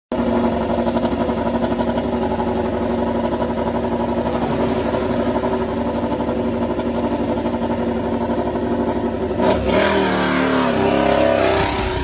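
Honda RC213V MotoGP bike's V4 engine running at a steady idle. About nine and a half seconds in, the revs rise and fall as the bike pulls away.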